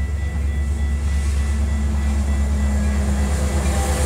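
Metra diesel commuter locomotive and its train approaching along the track: a low engine drone with a steady engine tone, and wheel-on-rail noise that grows louder toward the end as the train draws near.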